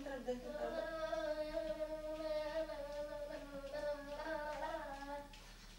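Singing: one long held note with slight wavers, fading out near the end.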